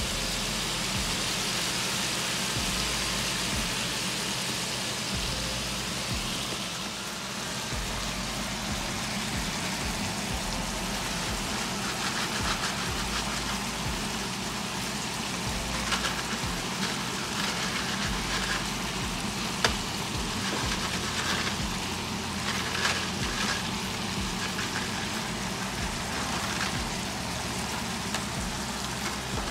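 Shrimp sizzling in hot oil in a frying pan: a steady hiss, stronger in the first few seconds, then scattered crackles and pops of spitting oil, with one sharp tick about two-thirds of the way through.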